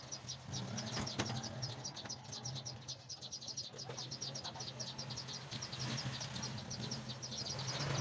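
A rapid, even run of high chirps, about ten a second, from a small animal, over a low steady hum.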